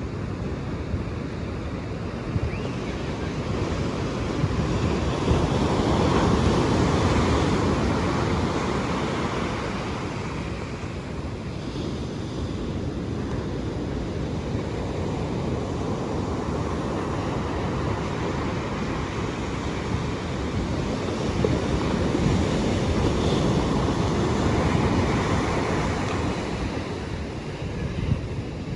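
Ocean surf washing in, the noise swelling and ebbing in two long surges, with wind on the microphone.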